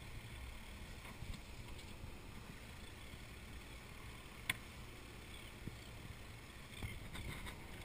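Faint low rumble of sea water around an inflatable rescue boat at sea, with a single sharp click about halfway through.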